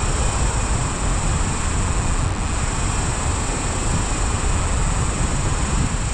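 Strong wind buffeting the microphone in a steady, gusting rumble, over the continuous wash of surf breaking on the beach.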